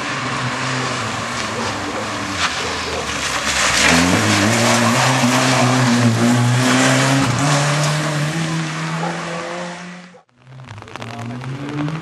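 Opel Corsa rally car engine pulling hard, its pitch climbing about four seconds in and held at high revs over a steady hiss of tyre and road noise. The sound cuts out abruptly near the end, then the engine comes back revving up again.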